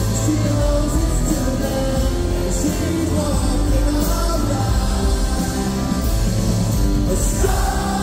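Live rock band playing a song in a large hall, with many voices singing along in a crowd singalong.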